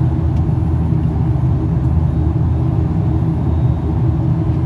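Steady low drone of an airliner's passenger cabin: engine and airflow noise heard from inside the plane, even in level throughout.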